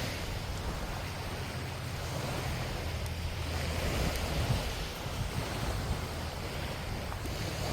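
Small waves washing on a beach, the wash swelling and easing, with wind buffeting the microphone.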